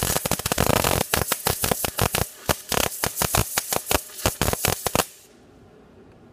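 MIG welding arc crackling as the wire feeds into a seam across a wider gap between steel box edges. The crackle is dense for about the first second, then turns into an irregular sputter of separate pops, and cuts off about five seconds in when the arc stops.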